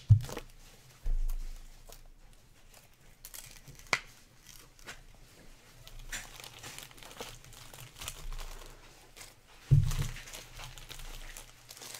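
Crinkling and rustling of a foil trading-card pack wrapper and clear plastic sleeve being handled, with scattered clicks and a dull thump about a second in and another near the end.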